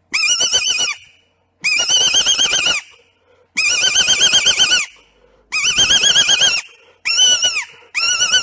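Rabbit-distress predator call for fox, blown in a series of six high, quavering squeals, each about a second long with short gaps, the last cut off at the end; the caller vibrates his voice into it to make the pitch waver like a rabbit's distress scream.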